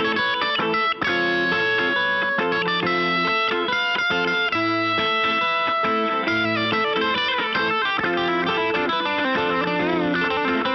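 Goldtop Les Paul electric guitar played through an amplifier: melodic lead lines over a low riff that repeats about every two seconds.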